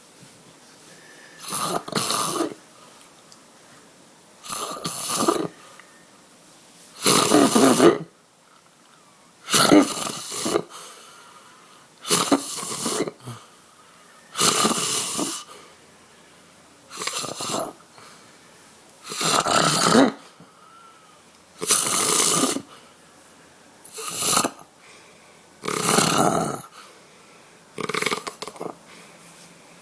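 A person snoring heavily in a regular rhythm: about a dozen loud, rasping snores, one roughly every two and a half seconds, each lasting about a second.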